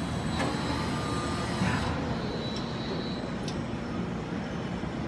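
Steady low machine hum with a few faint clicks, and a thin high whine that stops about three seconds in.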